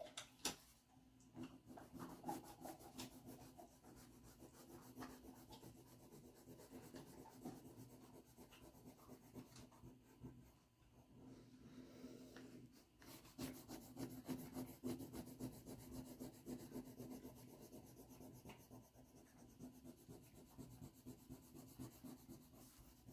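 Faint scratchy rubbing of a pastel stick on drawing paper, laid down in quick back-and-forth shading strokes, over a faint steady hum.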